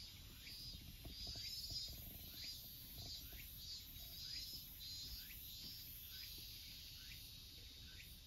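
Faint, regular chirping from a small animal, one short chirp about every two-thirds of a second, over a low background hum.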